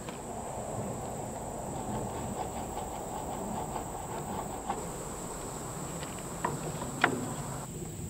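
Handheld gas torch running with a steady rushing hiss as its flame scorches the live edge of a wood slab. Two sharp ticks sound near the end, and insects drone high and steady behind it.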